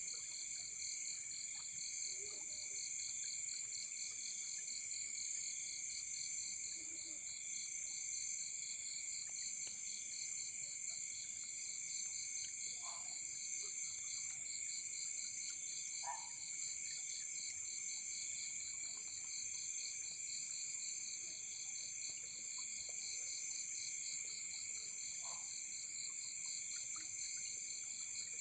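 Chorus of crickets and other insects: steady high-pitched trilling at several pitches, one of them pulsing rapidly. A few short faint frog calls sound through it.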